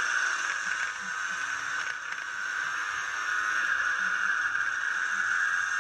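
Small go-kart engine running at high revs, a steady high-pitched drone that eases a little about a second in and builds again from about three and a half seconds.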